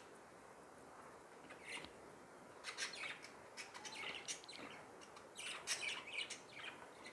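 Faint, scattered chirps of small birds in the background, with soft rustling of cloth being handled.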